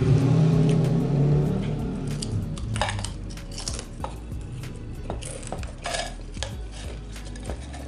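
Close-miked mukbang eating of instant fried noodles and potato chips: a series of sharp crunches and clicks, with utensil-like clinks. A low hum sits under the first second and a half.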